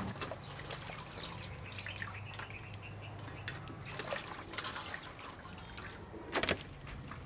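Hands swishing food around in water in a stainless steel bowl, with irregular splashes, drips and small knocks against the metal. There is a sharper knock about six and a half seconds in.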